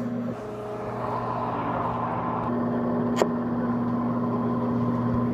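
Microwave oven running: a steady electrical hum, with a single sharp click about three seconds in.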